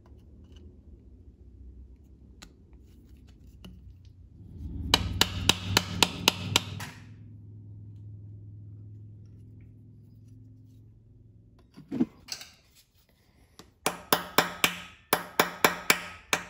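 A hammer taps a steel bolt extractor into a drilled-out, rust-seized exhaust manifold bolt in a cylinder head, setting it to bite. A quick run of sharp, ringing metal-on-metal taps comes about five seconds in and one strike near twelve seconds, then more runs of rapid taps, about four or five a second, near the end.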